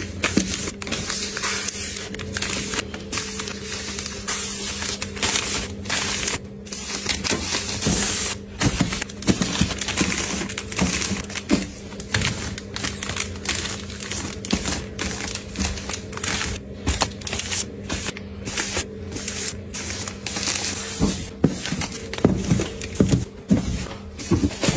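Plastic-wrapped soft packs of facial tissues being handled and stacked: a steady run of crinkling film and light taps as each pack is set down on the shelf, over a faint steady hum.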